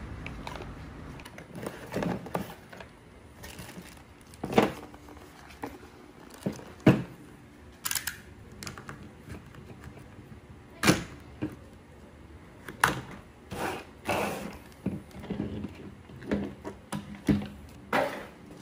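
Irregular clicks, taps and rustles as a boxed set of hydraulic disc brakes is unpacked: cardboard box flaps and plastic parts bags handled, and levers and hoses set down on a table.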